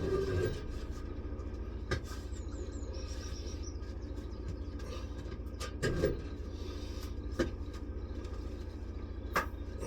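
A steady low engine drone with a fine, rapid pulse, under a few sharp clicks and one louder knock about six seconds in, from work on the wheel.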